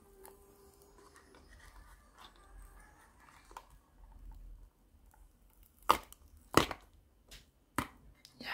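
Silicone mould being peeled off cured resin coasters: faint handling for the first few seconds, then two loud sharp snaps about six seconds in and two smaller ones just after as the hard resin pulls free of the mould.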